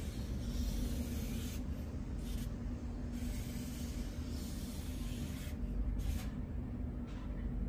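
Felt-tip marker rubbing across paper in several long strokes, a hissing scratch that starts and stops with each stroke, over a steady low hum.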